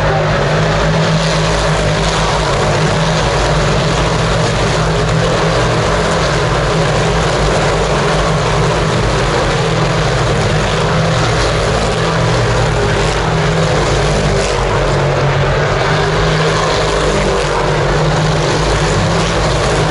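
Race-car engines running steadily at one constant pitch: a loud, continuous engine drone with a low hum, with no car sweeping past.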